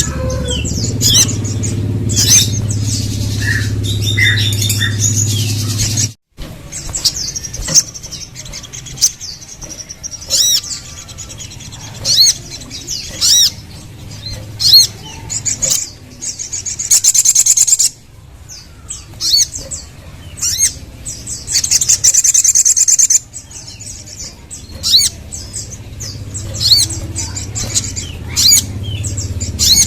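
Crimson sunbird (sogon) song: sharp, high chirps broken by several rapid, high trills, repeated throughout. A steady low rumble lies under the first six seconds and stops with a brief dropout about six seconds in.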